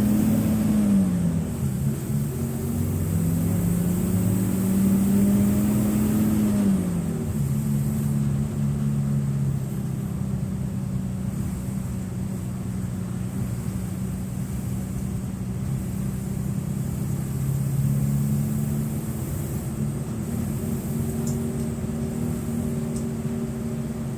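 Mercedes-Benz OF-1723 bus's OM906LA six-cylinder turbodiesel engine running under way. The revs rise and fall briefly near the start, climb for several seconds and drop about seven seconds in, then hold fairly steady with a slight rise later on.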